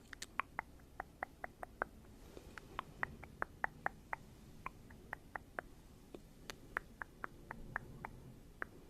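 Close-miked ASMR mouth sounds: a quick, irregular series of small wet tongue and lip clicks, about four a second, pausing briefly twice.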